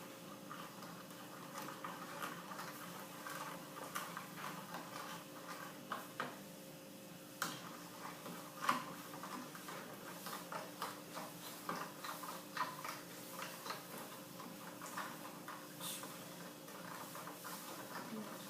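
A spoon stirring gelatin powder into hot water in a container, with many light, irregular clicks and taps of the spoon against the sides; one sharper clink about nine seconds in.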